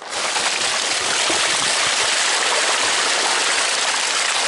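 Water gushing out of a tipped 150-litre plastic barrel onto a plastic tarpaulin, carrying a load of live carp with it. It starts suddenly and pours steadily.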